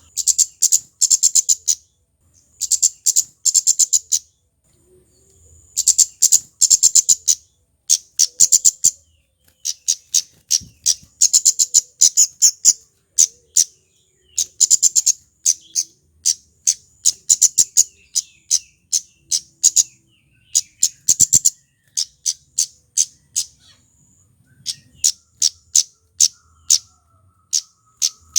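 Male scarlet-headed flowerpecker (kemade) calling: sharp, very high 'cit' notes in rapid runs, repeated in bursts with short pauses between them.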